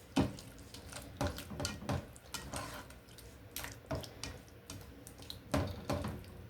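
A utensil stirring chicken pieces through thick tikka masala sauce in a pan: irregular clinks and scrapes against the pan with wet stirring sounds.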